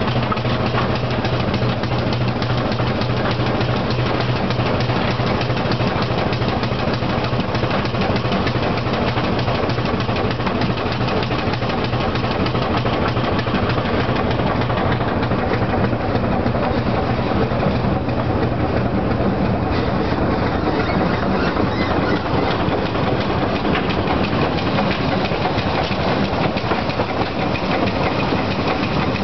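Steam rack locomotive of the Brienz Rothorn Railway running along the line, heard close to its running gear: a steady, fast mechanical clatter.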